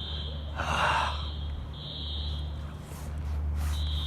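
Dormitory fire alarm sounder beeping a high-pitched tone in groups of three with a longer pause between groups, the temporal-3 evacuation pattern. A steady low hum runs underneath, with a brief rustle about a second in.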